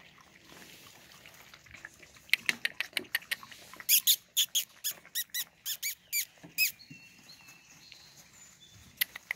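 Eight-week-old golden retriever puppies giving a run of short, high-pitched squeaks and whines, a dozen or so over a few seconds, then a couple more near the end.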